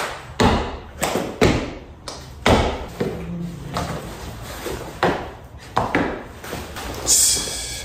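A dozen or so irregular taps and thumps of handling noise, about one or two a second, with a short hiss near the end.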